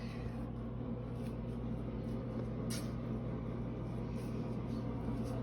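Steady low mechanical hum in a small room, with a single faint click about two and a half seconds in.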